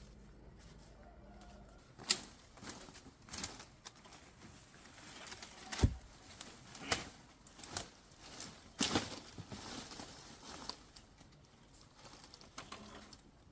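Irregular knocks, clicks and rustles, about a dozen in all, scattered through the middle of the clip; the sharpest come about two seconds in and about six seconds in.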